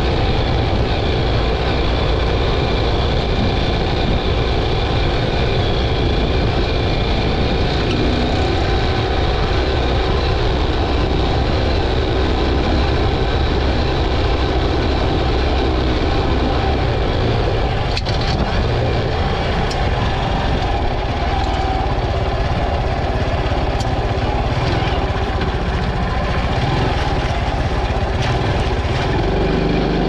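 Honda CT125's 125 cc air-cooled single-cylinder four-stroke engine running steadily while riding on a dirt track, heard from a camera mounted by the front wheel, mixed with wind and tyre noise. Occasional sharp ticks come in the second half.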